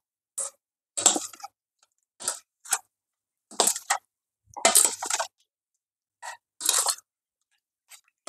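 Metal spoon stirring chunks of raw beef in a wet marinade in a stainless steel bowl, giving wet squelching in about nine short, irregular bursts.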